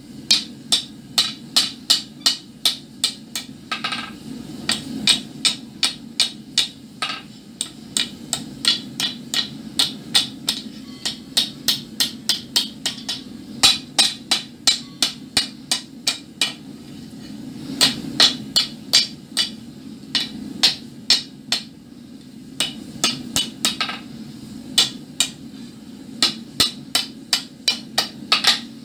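Hand hammer forging red-hot iron on a steel anvil: runs of sharp, ringing blows at about three a second, broken by short pauses, as the curled ram's horn is shaped.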